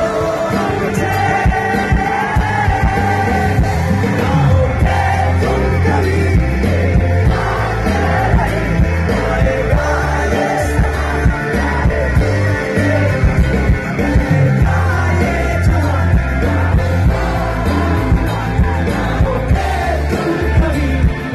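Live rock band playing loudly over a concert sound system: a singer over electric guitars with a heavy pulsing bass.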